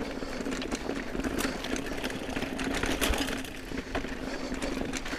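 Mountain bike rolling fast over a dirt singletrack: tyre noise on dirt with frequent knocks and rattles from the bike over roots and rocks, and a steady buzz throughout.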